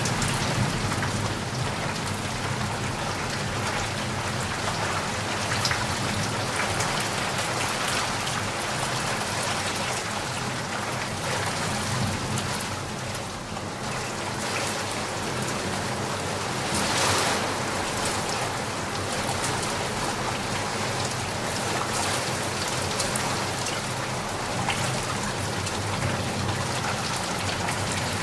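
Steady rain falling and pattering on surfaces, with a brief louder swell of heavier rain about two-thirds of the way through.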